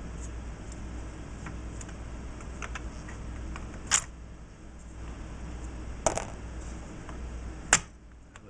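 Light clicks and taps of a synthesizer's front panel being worked down over its pots, switches and jacks, with three sharper clacks about four, six and seven and a half seconds in, over a low steady hum.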